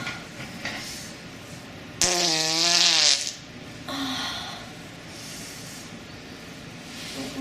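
Fart sound effect: a sudden loud fart about two seconds in, lasting about a second, with a wobbling pitch. A fainter, breathier puff follows about four seconds in.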